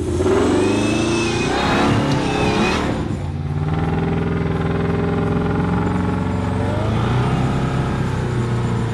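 An off-road Jeep's engine revving, rising and falling in pitch for the first three seconds, then running steadily.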